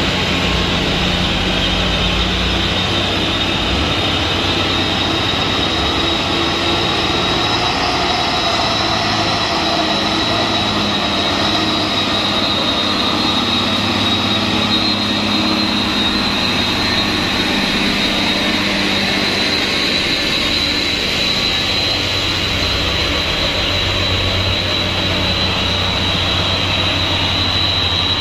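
Diesel engines of loaded Mitsubishi Fuso 220PS dump trucks running as they crawl up a muddy slope, one passing close by. The sound is a steady, continuous drone with a high whine over it.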